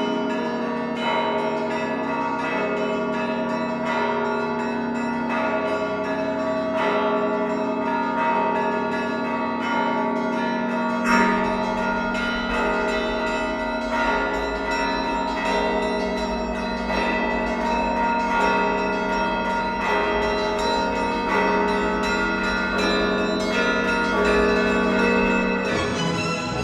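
Church bells ringing a busy peal: many bells struck in quick, irregular succession, their tones ringing on over one another. About eleven seconds in a heavier stroke sounds and a low rumble joins underneath.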